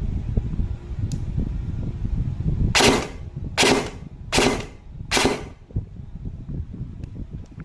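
Airsoft gun firing four shots about 0.8 s apart, each a short, drawn-out crack over a low rumble. The owner says each shot sounds doubled though only one BB comes out, which he puts down to a missing delayer.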